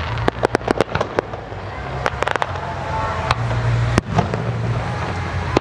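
Fireworks going off: a rapid string of sharp bangs and crackles over a continuous low rumble, with one especially loud bang about four seconds in.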